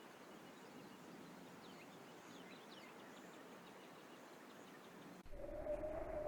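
Faint outdoor background noise with a few distant bird chirps. About five seconds in it cuts abruptly to a louder sound with one steady, held tone.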